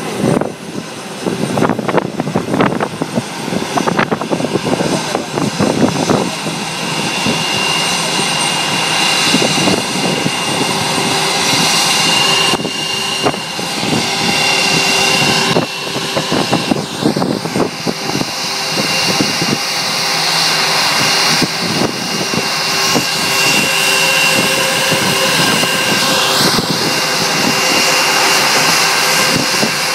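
Airbus A320 jet engines running at taxi power as the airliner taxis in toward the gate: a steady jet whine with a high, held tone over a broad rush. It grows slightly louder as the aircraft comes closer.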